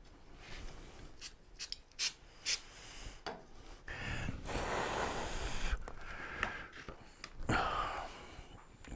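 Hands handling a thin plastic scooter shroud and small items on a workbench: a few sharp clicks and taps in the first half, then about a second of scratchy rubbing on the plastic around the middle, and a dull knock later.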